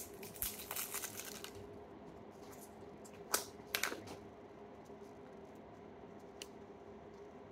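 Small plastic slime container being handled and its lid popped off: a run of light clicks and crinkles in the first second and a half, then two sharp plastic clicks around three and a half seconds in. A faint steady hum runs underneath.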